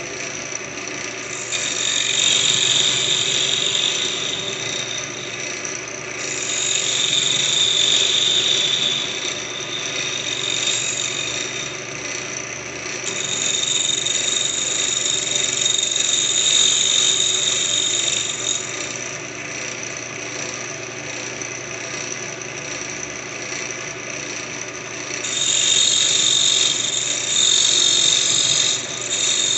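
Wood lathe running steadily while a turning tool cuts the spinning wood in four spells of a few seconds each; every cut adds a loud, high-pitched hiss over the hum of the lathe.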